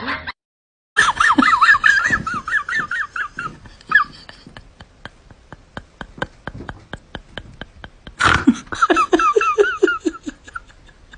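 High-pitched, rapid giggling in two spells, with a run of quick clicks between them, about five a second.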